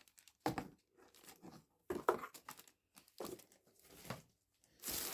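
Packaging rustling and crinkling as items are handled and unpacked, in short scattered bursts, with a denser stretch of rustling near the end.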